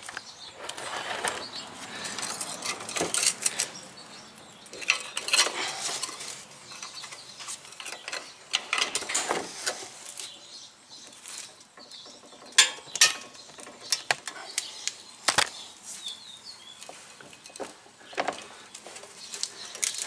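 Steel pry bar levering inside a 2014 Ford Focus front brake caliper, pressing the piston fully back to make room for thicker new pads. Irregular metal scraping, with several sharp clicks a little past halfway.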